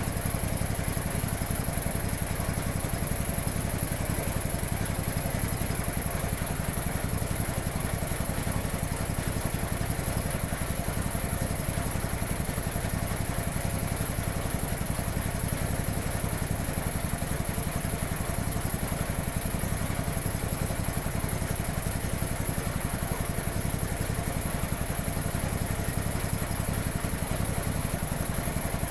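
1950s Quincy 320 air compressor pump, driven by a 3 hp electric motor, running steadily at about 700 rpm with an even, rapid pulse.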